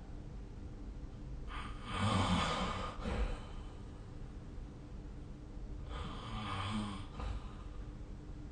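A sleeping person snoring: two noisy, buzzing breaths about four seconds apart, the first longer and louder.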